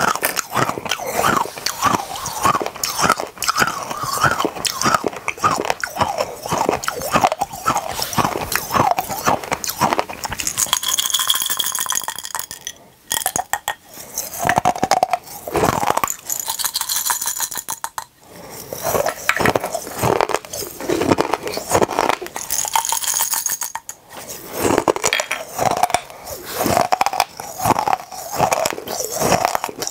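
Close-miked crunching and chewing of small colourful mini candies, a dense run of sharp crunches with a few brief pauses.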